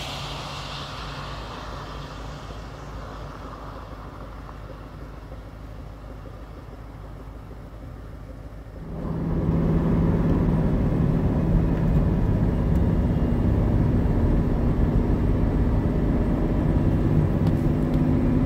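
Pickup truck driving: engine and road noise heard from the vehicle. It is fairly quiet at first, then about halfway through it steps up suddenly to a louder, steady engine hum.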